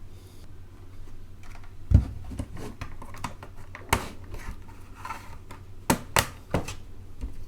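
Next Time 75 mechanical keyboard being handled as it is opened up: scattered clicks, taps and light scraping against the case. A heavy thump comes about two seconds in, a sharp click near four seconds, and a quick run of clicks around six seconds.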